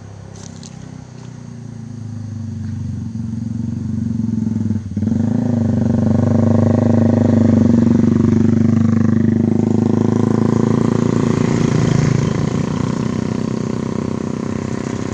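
Motorcycle engine running, growing louder over several seconds as it comes close, with a brief dip in level about five seconds in, then easing off slightly near the end.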